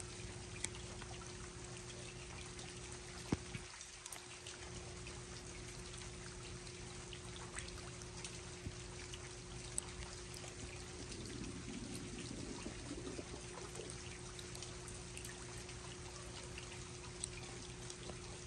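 Rain falling steadily, a continuous hiss with single drops landing close by now and then, the loudest about three seconds in. A steady low hum runs underneath.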